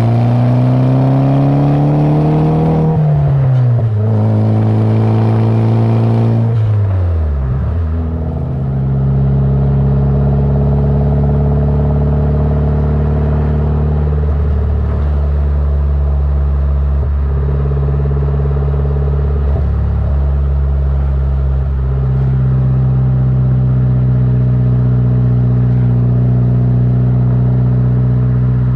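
Nissan S14's four-cylinder engine running through a freshly fitted ARC titanium 3-inch exhaust with two mufflers. It is revved up and falls back twice in the first eight seconds or so, then settles to a steady idle.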